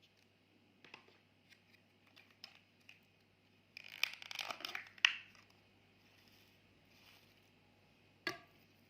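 Clear slime being handled: a few faint clicks, then a crackling stretch of many tiny pops lasting about a second and a half around the middle, and one sharp click near the end.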